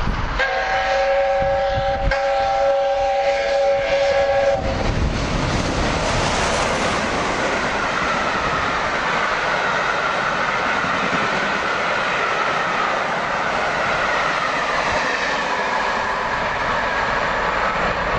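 Whistle of LNER Peppercorn A1 steam locomotive 60163 Tornado, a chord of several pitches held for about four seconds as it runs through the station. Then the train passes at speed with a steady rushing and rattling of wheels on rails and coaches.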